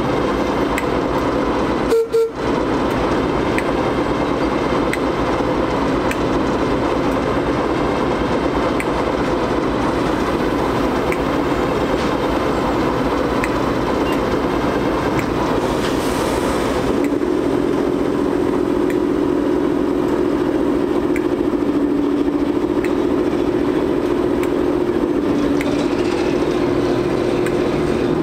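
Class 08 diesel shunter's English Electric six-cylinder engine running steadily, taking on a deeper steady drone about seventeen seconds in as the locomotive starts to pull away with its coach.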